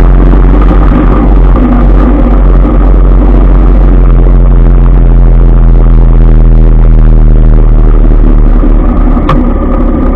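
Motorbike engine running steadily while riding in city traffic, easing off about eight and a half seconds in as the bike leans into a turn. A sharp click near the end.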